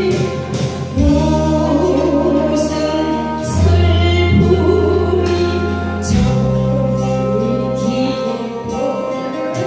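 A woman singing a song into a microphone over a recorded backing track with sustained bass notes and a steady beat, amplified through a banquet hall's PA speakers.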